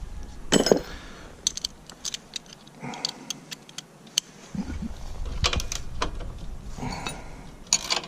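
Scattered metallic clicks, clinks and knocks of a ratchet wrench and socket being fitted to and worked on a bolt, with a louder knock about half a second in and a few more around five seconds in.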